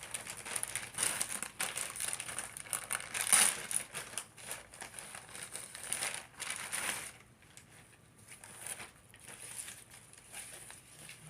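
Plastic packaging crinkling and rustling as it is handled, busy for about the first seven seconds, then fainter and sparser.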